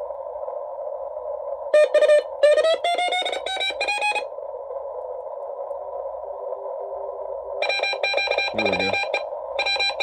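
Xiegu G90 HF transceiver receiving CW on the 40 m band: steady band hiss through the narrow CW filter. About two seconds in, a Morse signal keys in with its pitch rising as the tuning knob is turned. From about eight seconds a strong Morse code signal keys on and off at a steady pitch.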